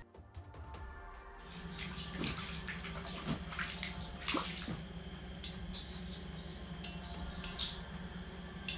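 A lake trout splashing in the water of an ice-fishing hole while held by the tail, with irregular sloshing and a few sharp splashes.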